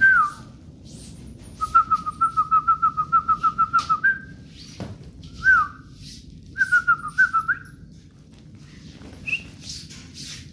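Whistling in pure notes: a falling whistle, then a fast warbling trill of about six notes a second ending on a higher held note, another falling whistle, and a shorter trill, typical of a person whistling to call a dog.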